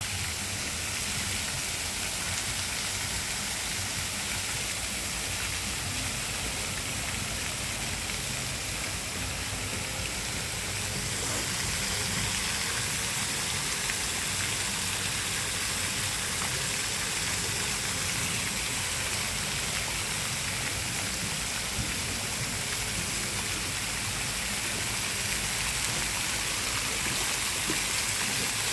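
Several small fountain jets spraying up from a shallow pond, the water falling back onto the surface in a steady splashing hiss that grows a little louder about eleven seconds in.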